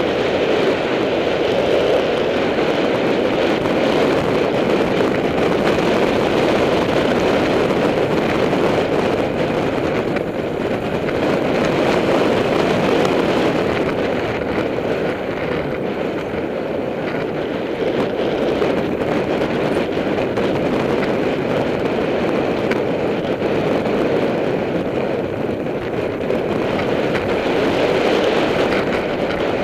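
Steady rushing of wind on a camera microphone mounted on a mountain bike, mixed with the rumble of knobby tyres rolling over a dirt and gravel trail.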